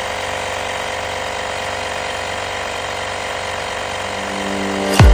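AstroAI portable air compressor's piston pump running steadily while inflating a car tire, a loud, even, rapid rattling hum.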